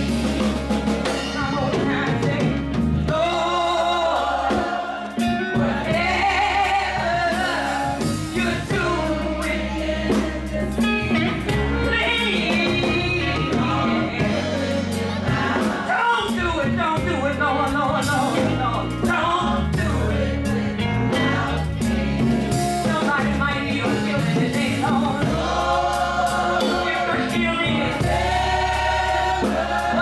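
Gospel choir singing, with voices over a steady, sustained low accompaniment.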